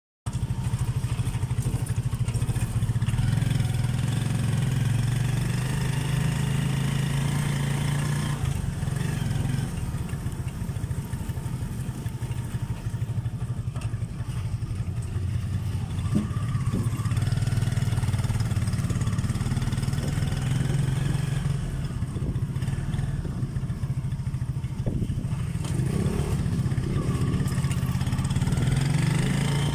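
Motorcycle engine of a motorcycle-and-sidecar tricycle running steadily under way, heard from inside the sidecar, with a steady low hum that eases off for a few seconds midway.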